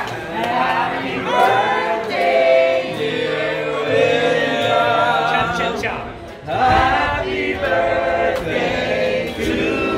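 Group of people singing a birthday song together in long held notes, with a short break about six seconds in.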